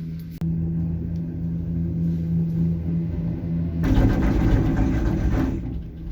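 Steady mechanical drone of a moving vehicle. A louder rushing noise swells over it for about two seconds a little past the middle.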